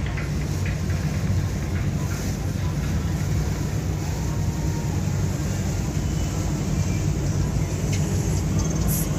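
Steady low rumble of a motorboat engine running.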